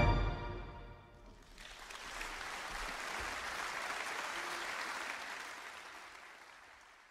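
The brass band's final chord dies away in the hall's reverberation, then an audience applauds, steady for a few seconds before the clapping fades out near the end.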